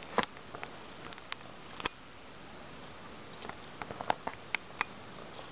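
Faint, sharp clicks and ticks: a few scattered at first, then a quicker run of them around four seconds in.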